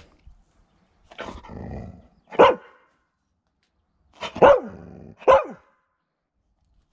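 A laika barking a few times in short, loud calls, the pitch dropping at the end of each, begging for cottage cheese held in front of it.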